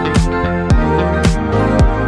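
Background music with a steady beat: a deep kick drum about twice a second over held chords, with crisp high percussion hits between.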